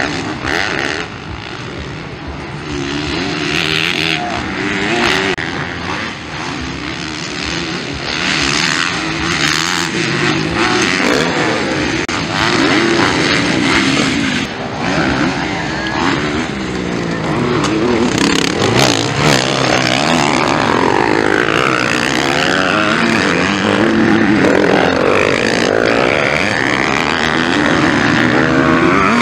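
Several MX1 motocross bikes racing close together, their engines revving hard and dropping off again and again as the riders accelerate, jump and shift.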